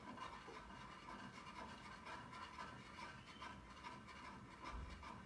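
Wax crayon scratching on paper in small, quick circular strokes: a faint, continuous rasp of rapid rubbing strokes.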